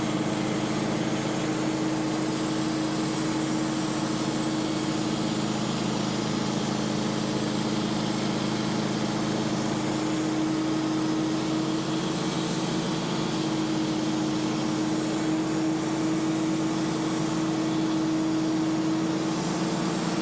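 Wood-Mizer portable band sawmill running steadily, its engine hum holding an even pitch with no change in level.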